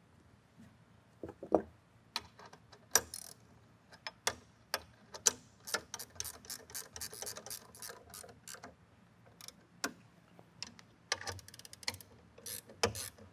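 Sharp metallic clicks and clinks, some single and some in quick irregular runs, from hand tools and metal parts being worked on a canning-line seamer as its guide rail is fitted back in place.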